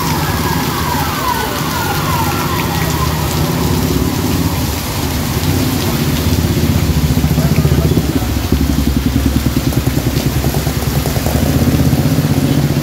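Heavy rain pouring onto a street, with vehicles hissing past on the wet road over a steady low rumble. A few falling whines sound in the first couple of seconds.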